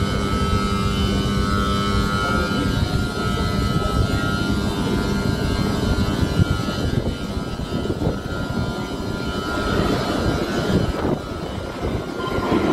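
Low rumble of a Moscow Metro train approaching through the tunnel, with a steady hum in the first few seconds that fades out; the train noise grows louder near the end.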